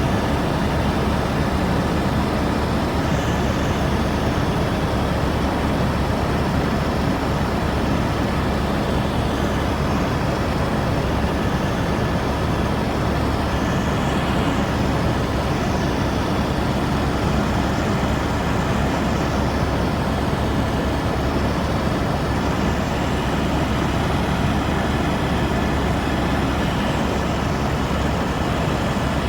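Steady helicopter noise in flight, engine and rotor droning at an even level with a thin steady whine above it.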